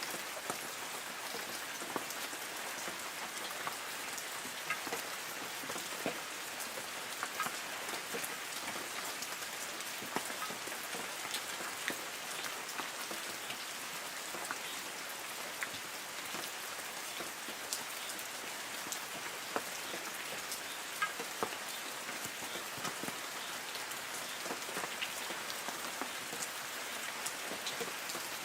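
Light rain falling steadily on forest trees: a continuous soft hiss dotted with the separate ticks of individual drops landing on leaves.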